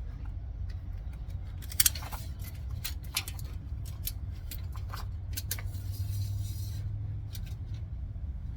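Light metallic clicks, taps and rattles of tools being handled during front-end measuring, with a sharp double click about two seconds in and a short hiss near the end, over a steady low rumble.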